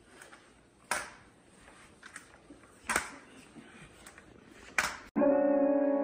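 Metal crutches knocking on a tile floor as someone walks on them, a sharp knock about every two seconds with fainter clicks between. Near the end, guitar music starts abruptly.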